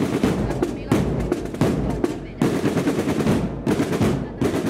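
Drum section of an agrupación musical (cornet-and-drum band) playing a procession march: dense, rapid snare-drum strokes and rolls with bass-drum hits.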